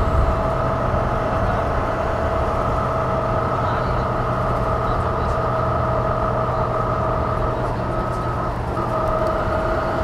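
2004 New Flyer DE60LF articulated hybrid bus with a Caterpillar C-9 ACERT diesel and GM-Allison EP50 hybrid drive, running steadily with its HVAC off. A low drone carries two steady high-pitched tones, which waver briefly near the end.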